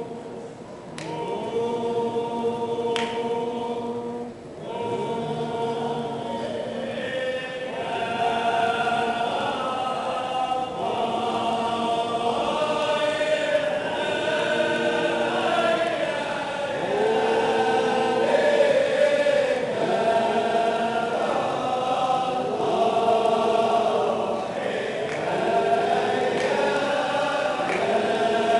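A congregation of men chanting together in a Sufi zikr (hadra). They open with long held notes, then from about six seconds sing a melodic chant that rises and falls.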